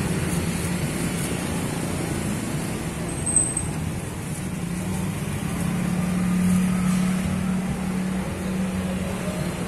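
Road traffic: a steady low engine hum from passing vehicles, growing louder about halfway through as a vehicle goes by. A brief high-pitched squeak about three seconds in.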